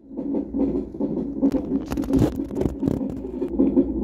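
Fetal heartbeat played through a Philips fetal monitor's Doppler ultrasound transducer strapped to the belly: a fast run of pulsing whooshes. The monitor reads a fetal heart rate of about 144 beats a minute during fetal monitoring of an overdue pregnancy.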